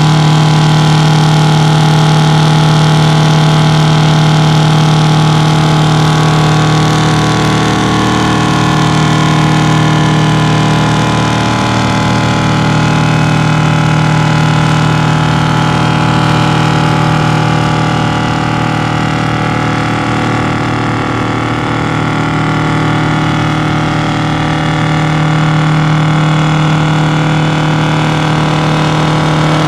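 Two-stroke Detroit Diesel 8V71 engine held at high revs under load in a long, steady burnout, driving the truck's spinning rear tandem tyres. The engine note wavers briefly a few times.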